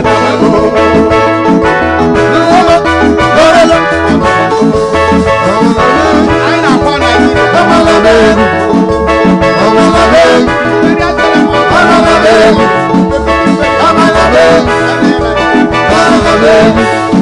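Live band playing upbeat praise music with a steady beat: drum kit, electric bass and Yamaha keyboard, with a male voice singing at times.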